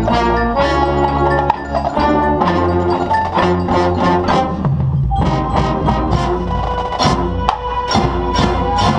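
Marching band playing its field show music, with mallet percussion such as marimba and xylophone striking many quick notes over sustained band chords.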